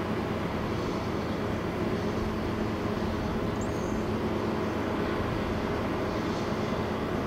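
Steady, even hum of distant engines, outdoor ambient rumble from far-off motor traffic, with a short high chirp about halfway through.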